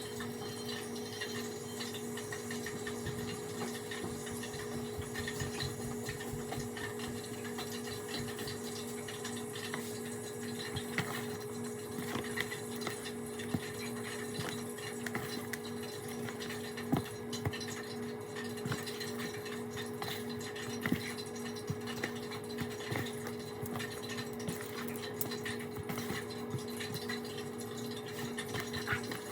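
Steady electrical hum from a kitchen appliance under an even hiss, with light clinks and taps of dishes and utensils now and then, one sharper knock about halfway through.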